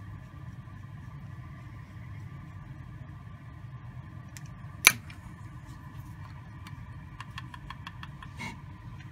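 Small screwdriver working a pivot screw on clarinet upper-joint keywork, over a steady low hum: one sharp click about five seconds in, then a run of quick light ticks near the end.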